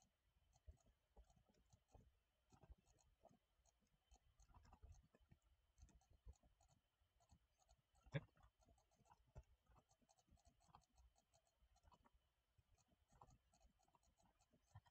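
Near silence with faint, scattered computer mouse clicks, one a little louder about eight seconds in.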